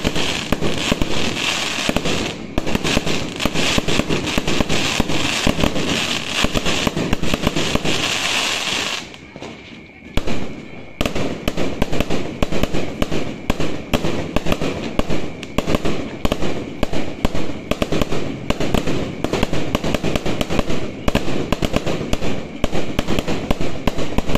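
Aerial fireworks bursting in rapid succession with dense crackling. The bangs ease off briefly about nine seconds in, then resume thick and fast.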